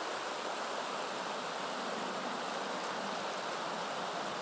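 Shallow, rocky river running over a riffle, a steady rushing of water.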